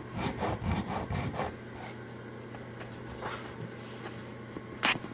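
Threads of a screw used as a file, scraping across hardened Bondo body filler to shape it. There is a run of quick scraping strokes in the first second and a half, quieter scraping after, and a sharp click near the end.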